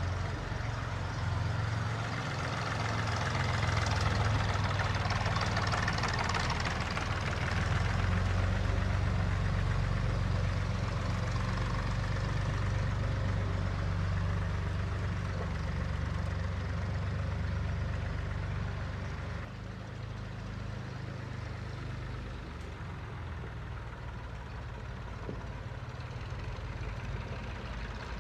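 A farm vehicle's engine running steadily, a low hum with hiss above it. The sound becomes a little quieter about two-thirds of the way through.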